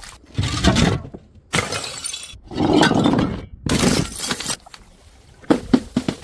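Glass bottles smashing and shattering: four crashes about a second apart, each followed by tinkling glass, then a quick run of sharp cracks near the end.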